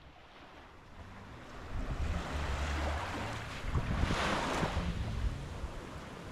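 Small waves lapping at the sandy shoreline, with wind rumbling on the microphone; the wash of the water swells up about four seconds in.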